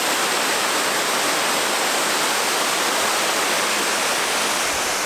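A tall waterfall, a steady, loud rush of falling water.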